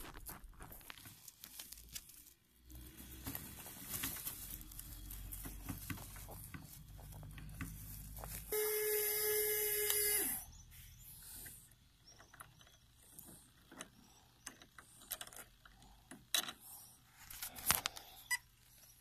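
RC4WD Warn Zeon 10 scale winch's small electric motor running: a low hum for several seconds, then a higher steady whine for about two seconds that cuts off suddenly. Scattered light clicks and knocks of the winch hook and line being handled follow.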